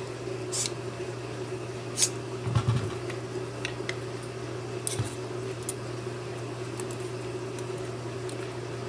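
Hand screwdriver driving a small screw to fasten a metal plate to a servo arm: scattered light clicks and taps of metal parts being handled, with a sharper click about two seconds in and a low thud just after. A steady low hum runs underneath.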